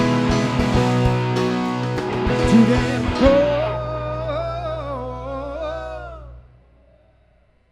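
Live rock band with guitars finishing a song: the full band stops a little over three seconds in, leaving one long wavering held note that fades out about six seconds in.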